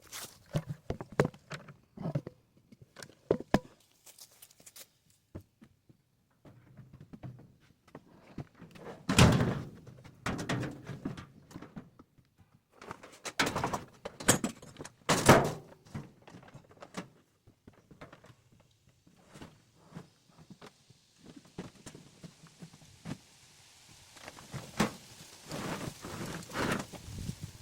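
Irregular knocks and thuds of objects being handled, with two louder thumps about nine and fifteen seconds in, and a faint steady hiss rising near the end.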